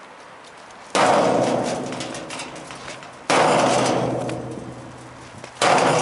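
Sledgehammer striking the stripped metal body of a dishwasher three times, each blow a loud clang that rings on and fades over about two seconds.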